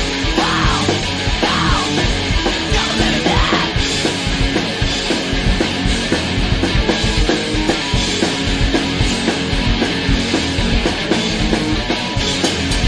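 Hardcore punk band recording: distorted electric guitars, bass and drums playing a fast, driving beat.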